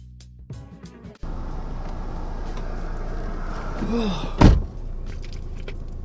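Background music with a beat stops abruptly about a second in, giving way to a steady low hum inside a car. About four seconds in there is a short vocal sound, followed by a loud thump.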